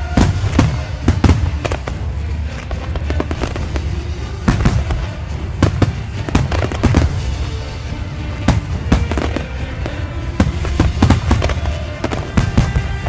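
Fireworks going off in a rapid barrage: dozens of sharp bangs and crackles, some in quick clusters, over a continuous low rumble, starting abruptly.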